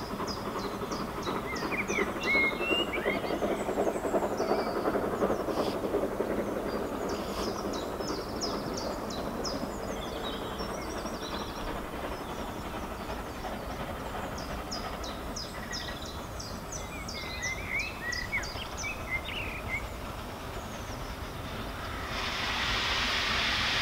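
LBSCR A1X Terrier 0-6-0T steam tank locomotive working in the distance, a steady low rumble under songbirds trilling and chirping in several spells. A hiss swells near the end as the engine comes closer.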